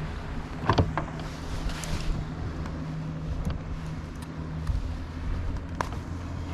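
Wind buffeting the microphone over a steady low hum, with a few short knocks, the loudest about a second in and another near the end.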